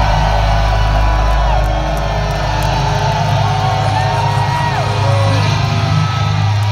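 A live metal band's amplified guitars and bass ringing out on a held low chord. A crowd cheers and whoops loudly over it.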